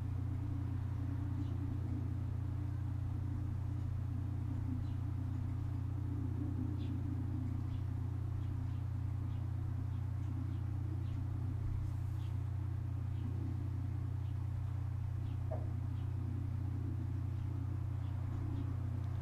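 Steady low hum with faint, scattered ticks.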